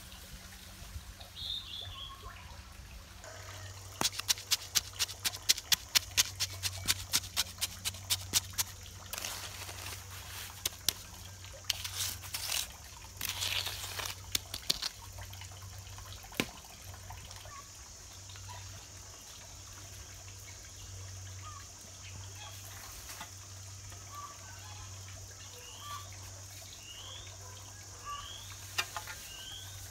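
A quick run of sharp knocks for about five seconds, then a few short scraping rushes, over a steady high-pitched drone. Short rising chirps repeat near the end.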